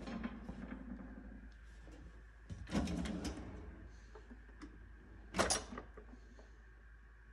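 Kitchen drawers being slid open and shut: a sliding rumble about two and a half seconds in, then a short, sharper knock of a drawer closing about five and a half seconds in.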